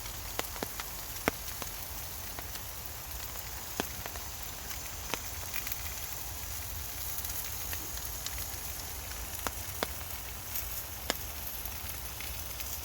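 Rain falling as a steady hiss, with irregular sharp drips landing close by.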